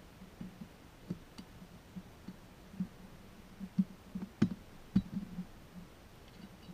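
Irregular small clicks and light knocks of metal winch parts being handled and fitted together during reassembly of a Barient #10 sailboat winch, with two sharper clicks about four and a half and five seconds in.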